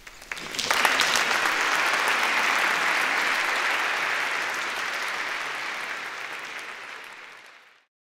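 Audience applauding: a few scattered claps, then full applause within the first second, which slowly fades away near the end.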